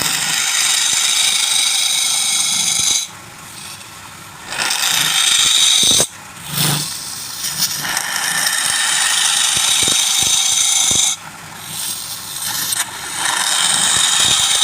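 A turning tool cutting into wood spinning on a lathe, in four passes of a few seconds each with short breaks between.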